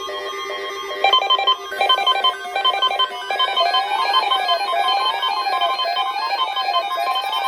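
Electronic synthesized tones. A steady electronic tone gives way about a second in to a fast, even run of short synth notes, and from about halfway a rising-and-falling sweep repeats roughly once a second.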